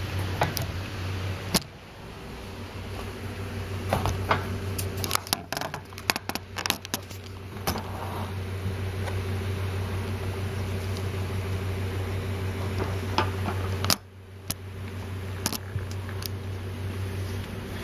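Steady hum and hiss of a running electric desk fan, with scattered sharp clicks and taps, thickest a few seconds in and again near the end. The sound dips briefly twice.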